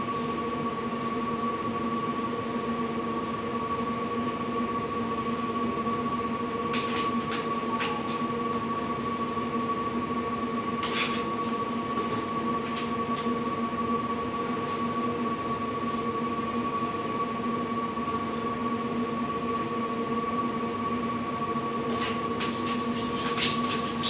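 Steady mechanical hum holding several level tones, with a few light clicks and taps about seven, eleven and twelve seconds in and again near the end.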